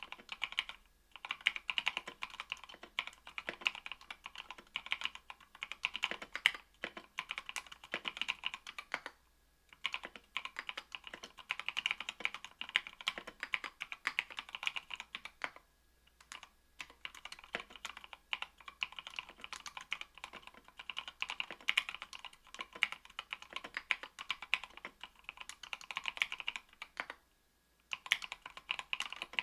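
Typing on a mechanical keyboard with lubed NovelKeys Cream linear switches (70 g) mounted in an aluminum plate: a fast, steady stream of keystrokes broken by a few short pauses.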